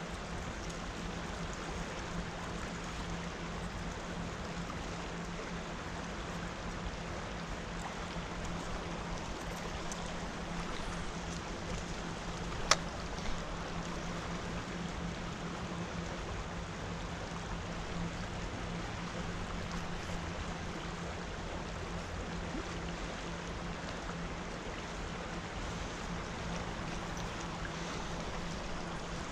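Creek water rushing steadily, with a steady low hum beneath it and one sharp click about thirteen seconds in.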